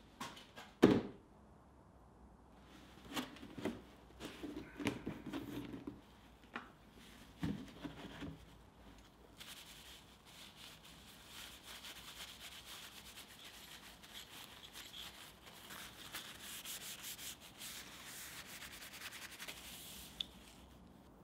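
A few handling knocks and clatters, with a sharp knock about a second in, then a crumpled paper towel rubbing linseed oil over a hand-forged steel nutcracker: a steady, rapid scrubbing for about ten seconds.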